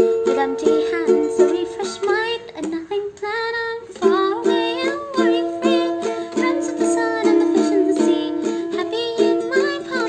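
Ukulele strummed in a steady rhythm of chords, with a woman singing along over it.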